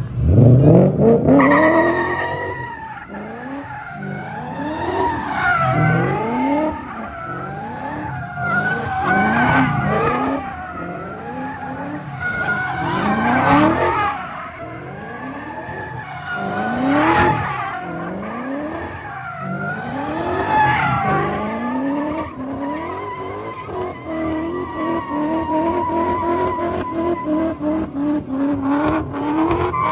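A car's engine revving hard again and again while its tyres squeal and skid on the pavement, as in a burnout or donuts. Near the end the engine holds a steadier pitch under a continuous tyre squeal.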